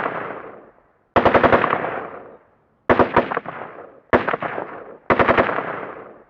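AK-47 assault rifle firing short bursts on full auto: four quick bursts of a few rounds each, about a second or more apart, each trailing off in an echoing tail.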